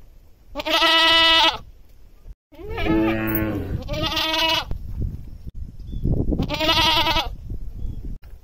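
Domestic goat bleating loudly four times, long quavering calls, the first the loudest and the second and third following close on each other.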